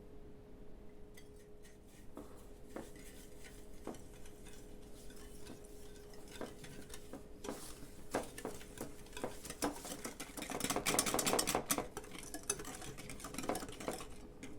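A utensil stirring and clinking in a mixing bowl by hand: scattered taps and scrapes, then a fast run of rapid strokes about ten seconds in, as when whisking.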